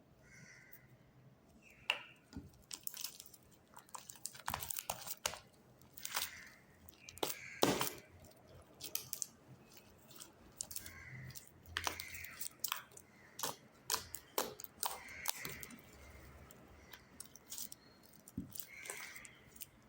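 Sticky glue slime being squished and pulled apart by hand, making irregular wet clicks and pops.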